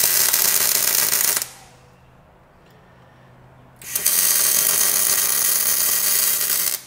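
MIG welder arc running in two weld passes: the first stops about a second and a half in, the second starts near four seconds and lasts about three seconds. The weld is filling holes to build up a worn shaft end.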